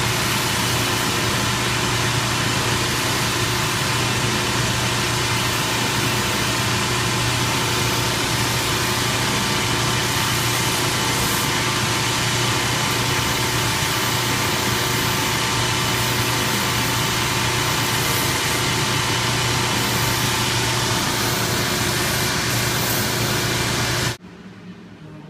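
Electric grinding machine running steadily, a loud even motor hum with a sanding hiss, as the orthotic's edges are ground down; it cuts off suddenly about 24 seconds in.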